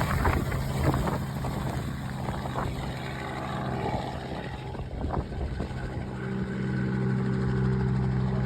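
Steady drone of a small helicopter's engine and rotor, with a few faint knocks.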